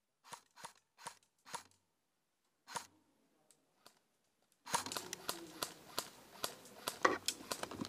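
Airsoft rifle fired in single shots: five sharp snapping clicks in the first three seconds. From about two-thirds in, a steady rustle and crunch of movement through gear and brush, with many small clicks, which is the loudest part.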